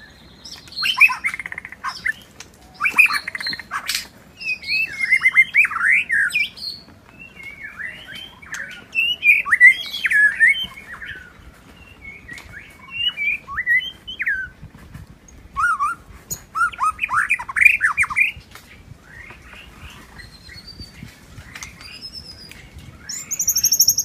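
White-rumped shama (murai batu) singing loudly: phrase after phrase of rich whistles, rapid warbles and sliding notes, with short pauses between phrases and a very high thin whistle near the end.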